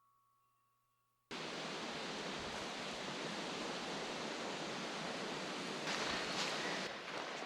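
Steady outdoor rushing noise with no distinct events, starting after about a second of silence.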